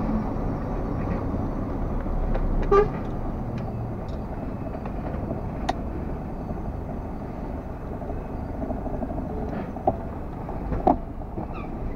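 Heavy truck's diesel engine and road noise heard inside the cab, running steadily, with a brief pitched toot about three seconds in and a few short clicks near the end.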